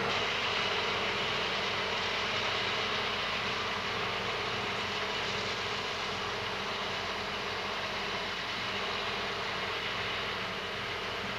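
Tractor engine and trailed Hesston forage harvester running steadily while cutting silage: a constant engine drone under a steady hiss.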